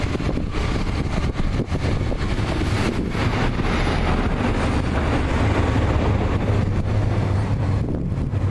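Narrow-gauge steam locomotive 'Talyllyn' running with its train, with a low rumble that grows louder about halfway through. Wind buffets the microphone.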